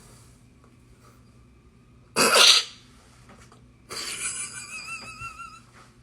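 A single loud sneeze about two seconds in. About a second later comes a longer, quieter hissing sound with a wavering whistle-like tone in it.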